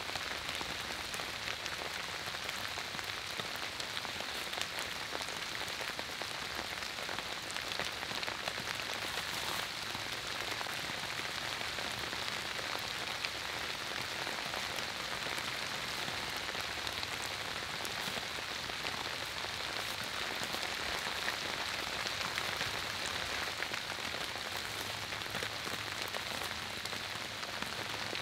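Steady rain falling, with many individual drops ticking against a continuous hiss.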